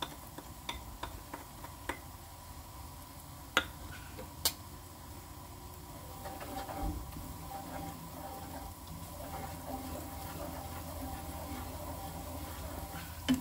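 Wooden spatula stirring and scraping spice paste in a hot non-stick wok, with a light sizzle of frying as powdered spices go into the oil. Two sharp knocks come a few seconds in, and the stirring and frying turn steadier from about halfway.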